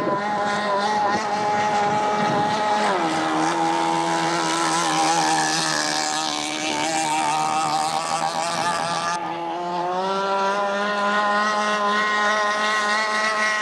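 Gas-powered RC cigarette boat's engine running at speed, its pitch dropping about three seconds in, holding steady, then climbing again from about ten seconds in.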